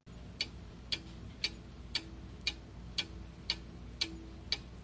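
Clock-tick sound effect for a quiz countdown timer: even ticks, about two a second, over a faint steady hiss, counting down the seconds left to answer.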